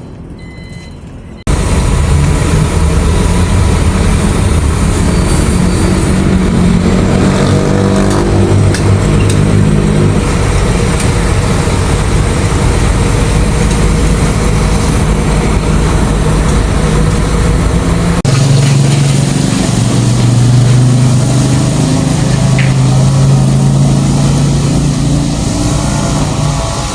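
Motor vehicle engine running close by, with a steady noisy rush over it. It starts suddenly about a second and a half in, and its pitch shifts lower around two-thirds of the way through.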